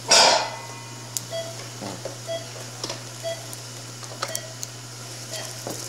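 Operating-room patient monitor beeping a short low tone about once a second, over a steady hum. A short loud rustle comes at the very start, and faint clicks come now and then.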